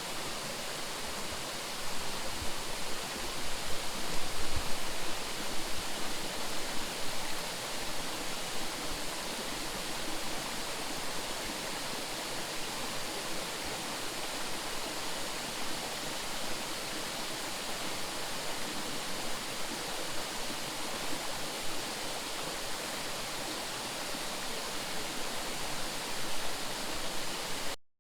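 Mountain stream rushing steadily, an even wash of flowing water, with a few low bumps a couple of seconds in. The sound cuts off suddenly near the end.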